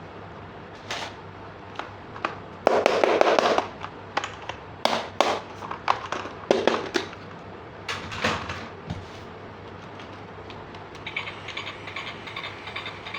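Plastic toy parts and packaging being handled: a series of separate clicks and knocks, with a denser burst lasting about a second around three seconds in, then quieter handling near the end.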